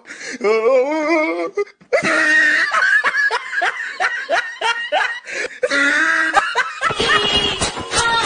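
Loud laughter, a run of short repeated ha-ha bursts, with music coming in about seven seconds in.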